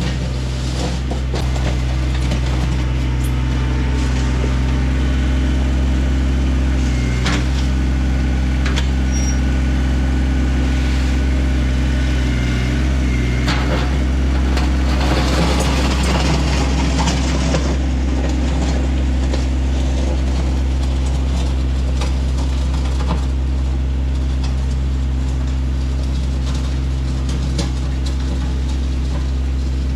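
Heavy equipment's diesel engine running at a steady speed while its bucket grades a gravel driveway, with a burst of scraping, rattling gravel about halfway through.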